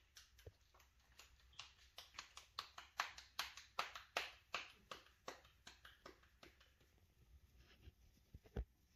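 Tortilla dough being patted flat between the palms by hand: a run of soft slaps about three a second, loudest in the middle and thinning out later, with a single dull thump near the end.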